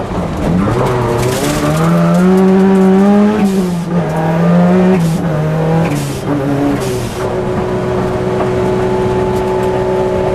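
Ford Sierra Cosworth rally car's engine, heard from inside the cabin, rising and falling in pitch with throttle and gear changes, with a short rush of hiss at several of the shifts. From about seven seconds in it holds a steady note.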